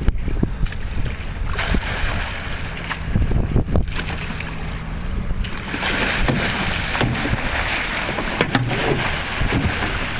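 Wind buffeting the microphone over the rumble and splash of a small boat at sea, with a few sharp knocks.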